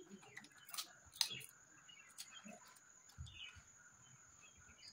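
Faint chirping of small birds, with two sharp clicks about a second in, over a faint steady high tone.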